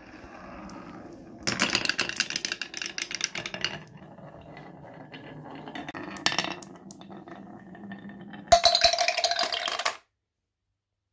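Marbles rolling along a wooden marble run, a low rolling rumble broken by a burst of rapid clattering about a second and a half in and a short run of clicks around six seconds. Near the end a loud clatter as they drop into a clear box of other marbles, then the sound cuts off suddenly.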